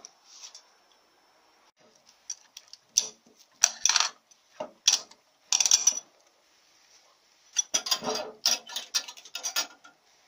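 Steel and friction clutch plates of an automatic transmission's 3-4/reverse clutch drum clinking and scraping against the drum and each other as the clutch pack is taken apart by hand, in irregular bursts of metallic clinks and rattles with short pauses between.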